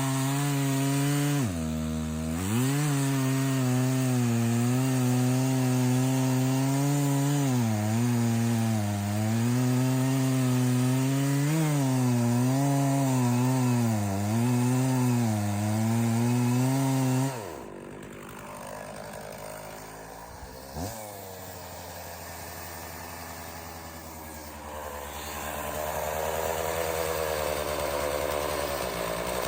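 Stihl 066 two-stroke chainsaw cutting into a big red oak log at full throttle, its pitch dipping and wavering as the chain loads in the wood. About two-thirds of the way through it drops back to idle, then revs gradually up again near the end.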